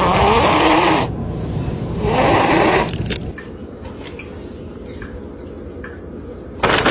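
Loud snoring: two long, rasping snores about two seconds apart, followed by a quieter steady hum and a short loud burst of noise near the end.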